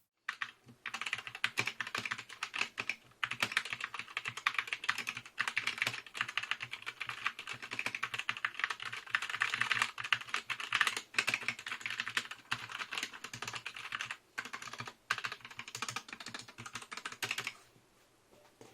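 Typing on a GEEK GK61 60% keyboard with Gateron optical brown switches and ABS keycaps: fast, continuous keystroke clicks with a few brief pauses, stopping near the end. The tactile brown switches are fairly clicky.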